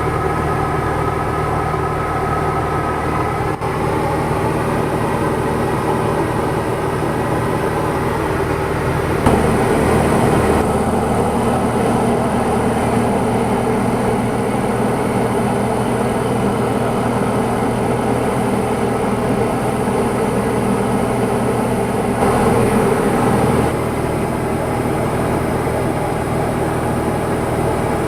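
Diamond DA40's piston engine and propeller droning steadily in cruise, heard inside the cockpit; the noise swells briefly about nine seconds in and again around twenty-two seconds.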